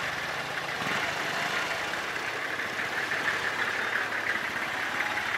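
Motorcycle engine running steadily at low revs, a fast even chugging heard from the bike the camera is mounted on as it rolls slowly.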